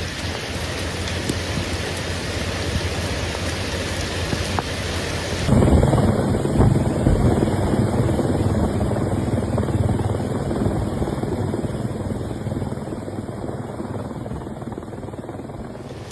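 Steady rushing noise that turns louder and deeper about five and a half seconds in, then slowly eases toward the end.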